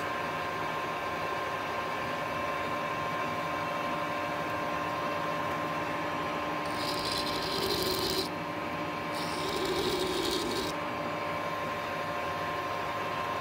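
Metal lathe running with a steady gear whine. A hand deburring tool scrapes the inside edge of the spinning metal tube twice, about halfway through, each time for a second or so.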